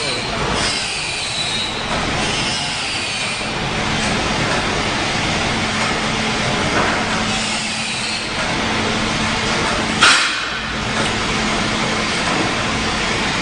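Automatic transformer soldering line and its conveyors running: a steady mechanical din with a low hum, a few brief high falling squeals in the first few seconds, and one short, sharp burst about ten seconds in.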